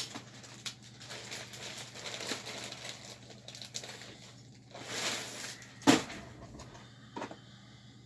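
Hands handling wires and parts inside an opened power amplifier: irregular rustling and light clicks, with a sharp knock about six seconds in, over a steady low hum.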